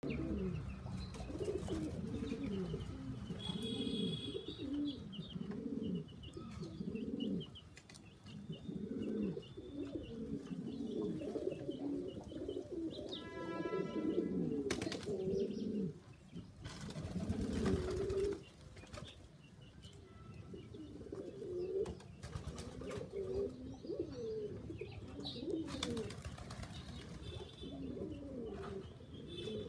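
A flock of domestic fancy pigeons cooing continuously, many overlapping low, rolling coos. A few short high chirps and a few brief bursts of noise around the middle.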